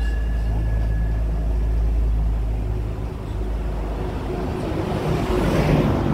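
Tourist road train's engine running with a steady low rumble as it rolls along the street, with a rushing noise swelling near the end.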